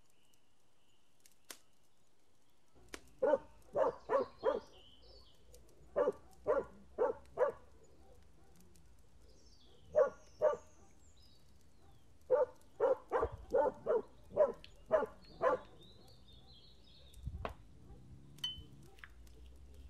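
A dog barking in runs of short barks, four, four, two, then about eight, with faint bird chirps behind.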